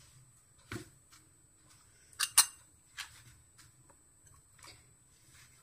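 Soft rice-flour dough being pressed by hand into the steel cylinder of an idiyappam press, with a few light knocks and a sharp double clink of the steel press a little past two seconds in.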